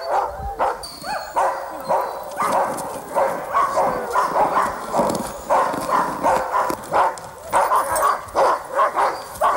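Sled dogs barking together in a dense, continuous chorus of overlapping barks, several a second. It is the excited clamour of a team eager to be off on a run as the dogs are harnessed.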